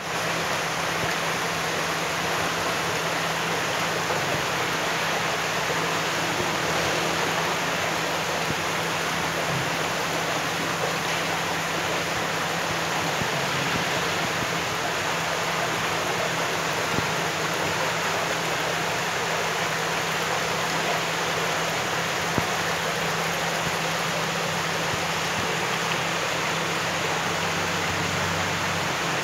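Steady rushing of running water, even and unbroken, with a constant low hum underneath, typical of a koi farm's pond pumps and water flow.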